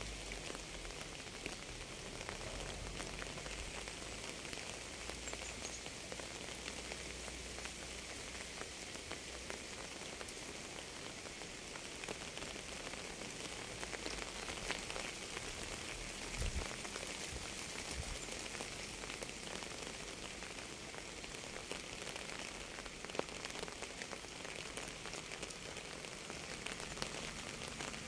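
Steady rain falling on a surface: a dense, even hiss full of tiny drop ticks, with a couple of brief low thumps about sixteen seconds in.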